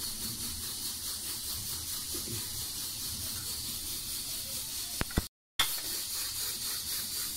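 Steady hiss, with two light clicks about five seconds in, then the sound cuts out for a moment.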